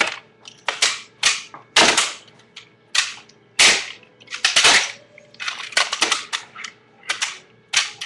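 Fingerboard tricks on a wooden table: a quick, irregular series of sharp wooden clacks as the board is popped and lands, about ten in all, some followed by a short scrape of the board rolling or grinding.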